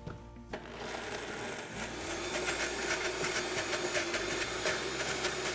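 Countertop blender starting up about half a second in and running steadily, grinding soaked hazelnuts and liquid into a chocolate-hazelnut paste.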